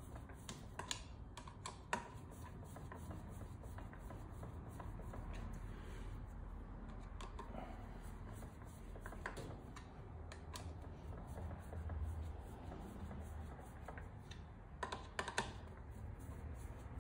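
Sparse light clicks and small rattles of hand work on a dirt bike's open clutch, with metal parts being handled and fitted. A few louder clicks come about a second in and again near the end.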